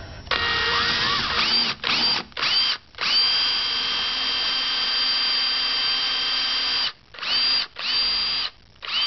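Power drill boring through a laptop LCD screen, its motor whining in trigger pulses: a short run, two quick bursts, a long steady run of about four seconds, then a few short bursts near the end. The pitch sweeps up each time the motor spins back up.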